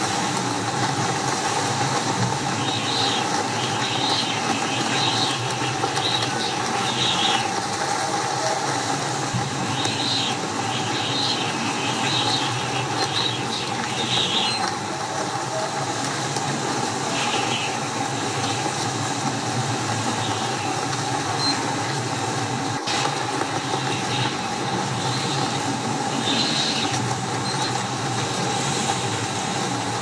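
Strong storm wind blowing, a steady rushing noise, with short high-pitched sounds coming and going through it, mostly in the first half and again near the end.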